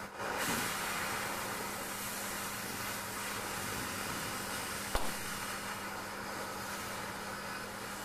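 Oxy-fuel cutting torch hissing steadily as it cuts through a steel leaf spring, getting louder just after the start, over a low steady hum. One sharp click about five seconds in.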